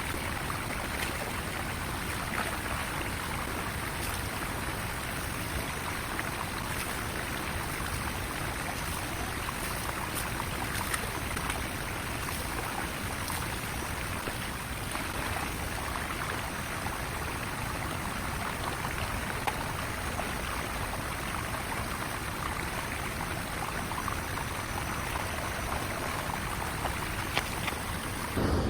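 Steady rushing of water from a jungle waterfall.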